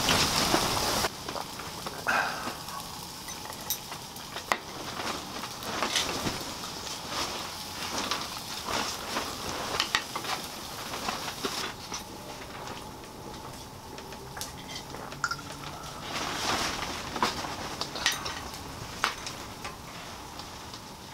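Skewered shrimp and vegetables sizzling on a tabletop grill, with scattered clicks and taps of chopsticks picking up food and setting it on a plate.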